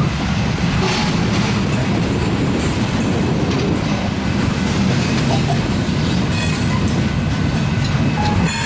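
Loaded coal hopper cars rolling past close by: a steady rumble of steel wheels on the rails, with occasional clicks as wheels cross rail joints.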